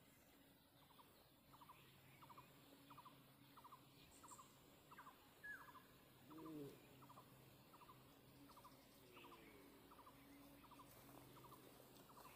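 Faint outdoor animal calls: a short rattled note repeats evenly about twice a second, with an occasional falling whistle from a bird, over a low steady hum.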